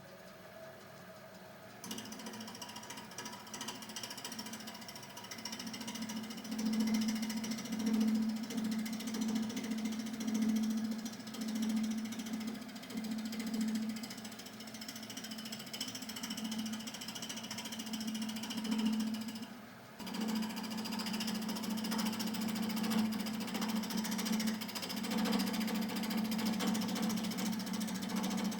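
Wood lathe running, its motor hum swelling and fading about once a second as the turning work goes on.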